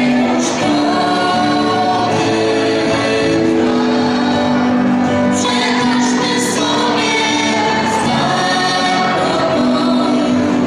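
A small choir of young voices singing a song together, holding long notes, accompanied by acoustic guitar.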